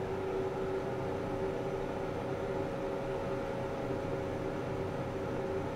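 A steady, even mechanical hum with a couple of held tones over a low hiss, like a fan or ventilation running: the room ambience of a film scene.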